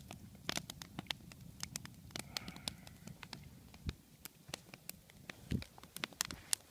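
Wood campfire of stacked log-cabin ('well') logs crackling, with frequent sharp, irregular snaps and a couple of low knocks in the second half.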